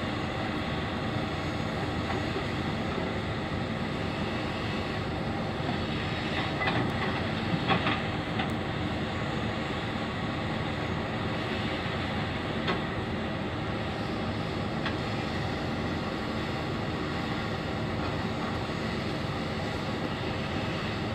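Hitachi Zaxis 470 excavator's diesel engine running steadily while it works stone rubble over a steel mesh screen, with a short spell of louder clattering about six to eight seconds in and a few single clicks later.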